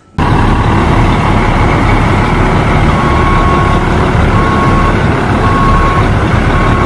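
Concrete mixer truck's engine running loudly and steadily. From about three seconds in, its reversing alarm beeps about once a second.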